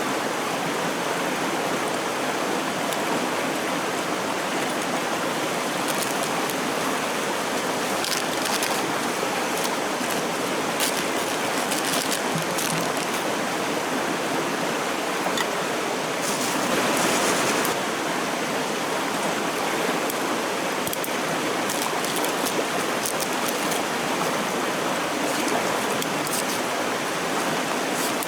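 A clear stream rushing steadily over rocks, with scattered light clicks and a brief louder swell about two-thirds of the way through.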